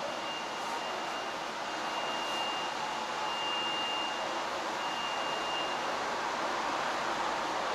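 New York City subway train running, a steady rumble that grows slowly louder, with a faint high whine that comes and goes.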